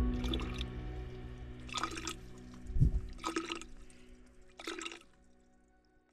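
Water squirting from a hiker's water filter into a plastic bottle in four short splashes about a second and a half apart, over background music that fades out near the end.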